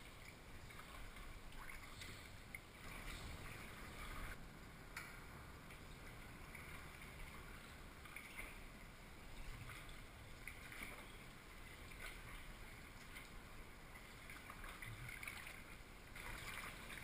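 Faint water sounds of kayak paddling: a double-bladed paddle dipping, splashing and dripping at irregular intervals, with the hull gurgling through calm river water.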